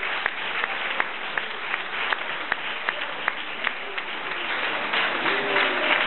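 Audience applauding, with one clapper close by clapping in a steady rhythm about three times a second; the applause swells slightly near the end as voices rise.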